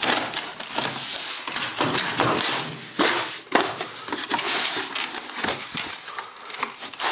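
Cardboard box and packing material of a new microwave being pulled and handled: continuous rustling and scraping with several knocks, the sharpest about three and a half seconds in.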